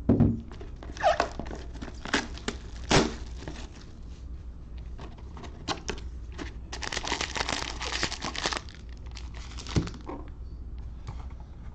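A cardboard box of 2020 Panini Elite Extra Edition baseball cards being handled and opened. A few knocks sound early on, then a couple of seconds of crinkling and tearing past the middle, and a single knock near the end as the packs are set down.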